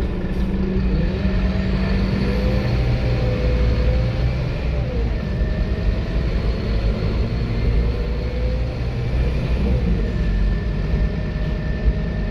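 Scania K230UB single-deck bus heard from the rear of the saloon while under way and driven hard: a steady heavy diesel rumble with a drivetrain whine that rises and falls, dipping and climbing again about a second in, around five seconds and near ten seconds as the gearbox shifts.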